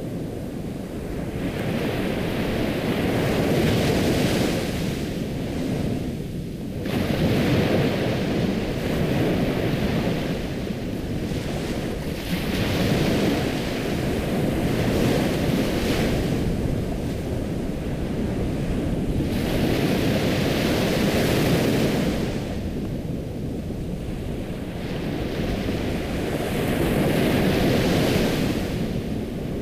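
Ocean surf: waves breaking and washing in, the rush swelling and ebbing every few seconds.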